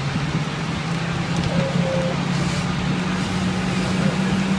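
A large engine, most likely a fire engine at the scene, running with a steady low hum under a continuous rushing noise.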